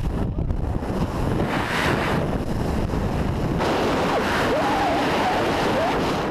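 Steady rushing wind blowing hard on the microphone.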